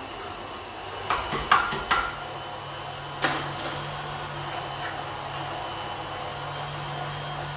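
Stand mixer's motor running a meat-grinder attachment with a steady hum, mincing onion through to flush the last of the abalone out of the grinder. A few sharp clicks and knocks come between about one and two seconds in, and one more near three seconds.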